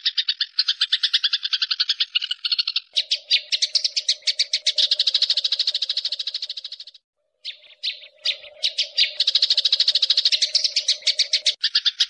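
Sparrow chirping in fast, even runs of calls, about six a second, with a short break about seven seconds in.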